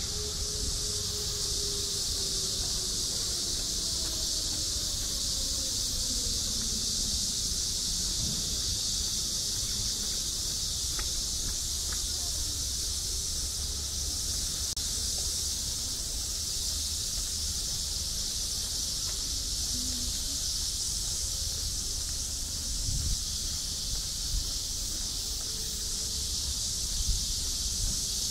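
Steady, unbroken high-pitched chorus of insects. Under it a low drone falls slowly in pitch over the first eight seconds, as an engine passes by, and there are a few light knocks near the end.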